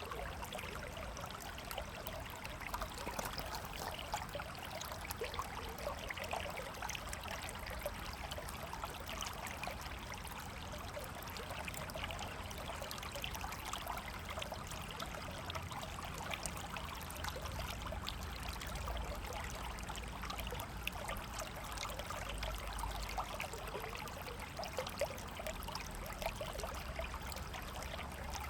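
A river flowing steadily, its water running and gurgling over rocks in an even rush, with a low rumble underneath.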